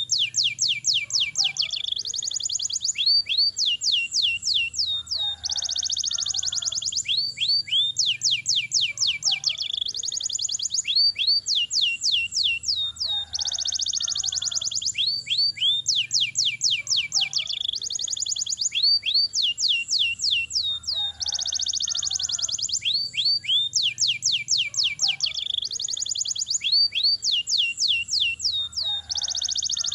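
Domestic canary singing without a break in long rolls: rapid trills of repeated notes, changing to a new phrase about every second.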